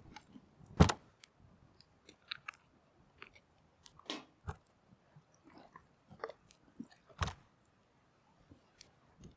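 Scattered sharp knocks and small clicks of things being handled, two louder knocks about a second in and about seven seconds in.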